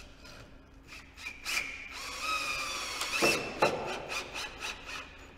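Cordless drill driving a long screw down through a ridge tile into the timber ridge batten. The motor whine drops slightly in pitch under load, among dry clicks and rasping of the screw turning, with a louder burst a little past the middle.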